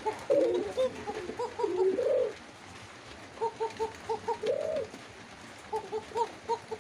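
Domestic pigeons cooing. There are three longer, swelling coos (one early, one about two seconds in, one about halfway), with runs of short clipped coo notes between them, typical of a male's courtship display.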